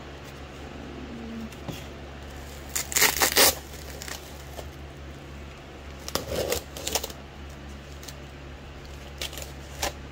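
Blue tape ripped off a bubble-wrap bundle in two loud bursts, about three seconds in and again around six seconds, with the bubble wrap crinkling in the hands. A couple of small sharp crackles come near the end.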